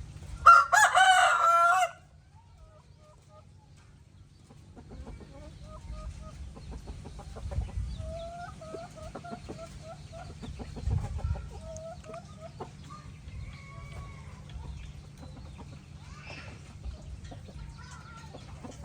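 A rooster crowing once, loud, about a second and a half long near the start, followed by a run of quieter chicken clucks.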